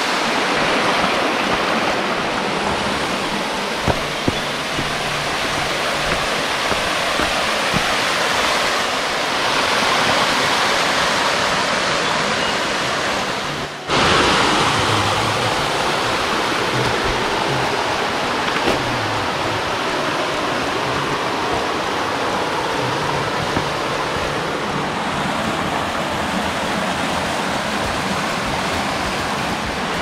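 Mountain stream water rushing as a steady hiss, with background music faintly underneath. The sound drops out for an instant about halfway through.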